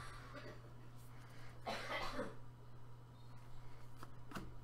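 A person coughs once, a short rough burst about two seconds in. A couple of light clicks follow near the end, over a steady low hum.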